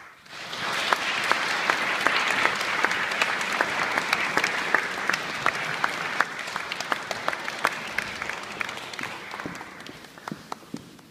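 Audience applauding, breaking out all at once and holding steady, then thinning and fading over the last few seconds.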